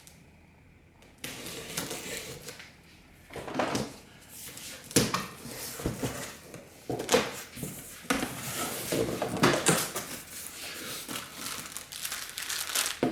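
Packaging being opened and handled: plastic and cardboard crinkling and rustling, with scattered sharp knocks. It starts about a second in.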